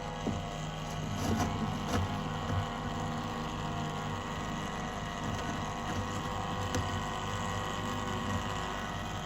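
Small electric aquarium gravel vacuum running with a steady motor hum, with irregular clicks and rattles over it.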